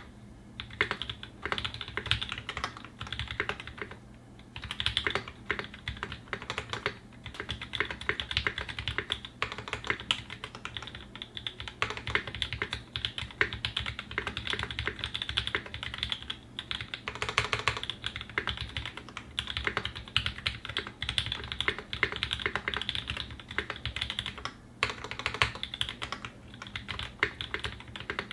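Continuous typing on a Singa 75 custom mechanical keyboard with a polycarbonate case and brass plate, lubed Tangerine linear switches, lubed Zeal-clone stabilizers and GMK ABS keycaps. It is a steady stream of keystrokes with a few short pauses.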